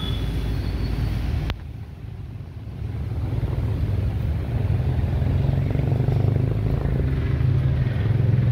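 Swollen, muddy floodwater of a river rushing past, a steady heavy low rumble. It cuts out sharply about a second and a half in, then builds back up over the next couple of seconds.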